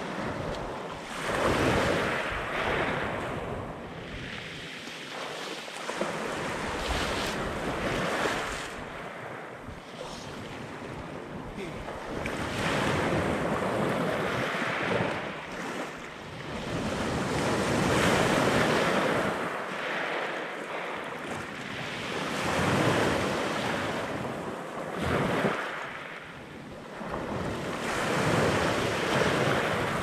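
Black Sea surf breaking on a pebble beach. The wash of the waves swells and fades every few seconds.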